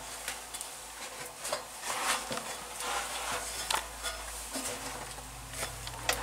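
Someone climbing a rusty steel ladder up a narrow concrete shaft: irregular metal clinks and scrapes of hands and boots on the rungs, a few every second.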